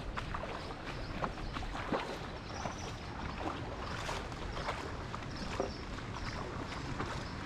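Water sloshing with light splashes, broken by scattered small knocks and clicks.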